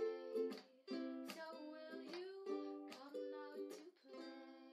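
Plucked-string instrumental music, chords struck about twice a second, each ringing on; the last chord, near the end, is left to ring and fade.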